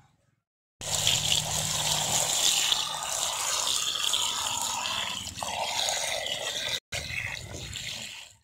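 Water poured in a stream into an aluminium pot full of boiled eggs, splashing steadily. It starts about a second in, breaks off for an instant near the end, then fades away.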